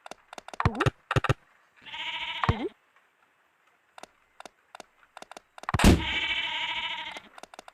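Cartoon farm animal bleating twice: a short bleat about two seconds in and a longer one near the end, with sharp clicks before and between them.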